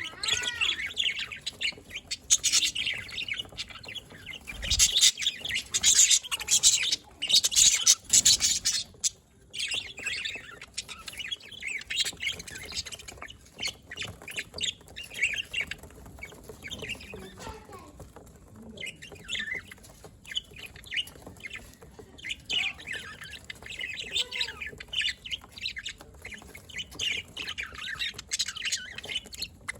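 Budgerigars chirping and warbling continuously, with harsher squawks mixed in; the chatter is densest and loudest in the first third.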